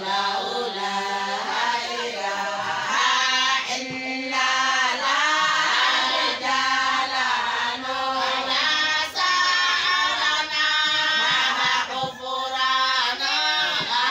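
A group of women singing a Somali Bantu song together in chorus, the voices going on without a break.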